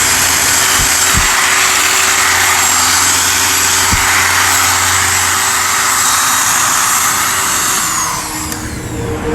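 Electric drill running at a steady speed with a high motor whine while drilling into the plastic radio bezel to free its front half from the back. The motor winds down about eight seconds in.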